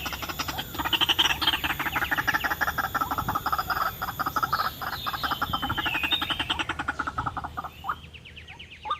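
White-breasted waterhen calling: a fast, rattling chatter of croaking notes that thins out into a few separate calls near the end.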